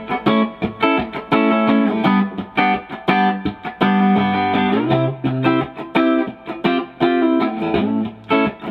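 Fender Telecaster electric guitar played through an amplifier on its bridge pickup: a quick run of picked chords and single notes, each struck sharply and left ringing.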